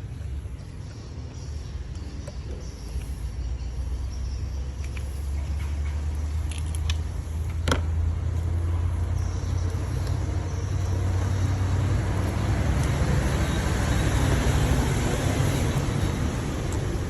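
Car engine running with a steady low rumble that grows louder through the second half. A single sharp click about eight seconds in.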